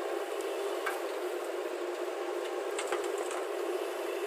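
Heavy diesel machinery running steadily, with a few light clicks and knocks about half a second in and again around three seconds in.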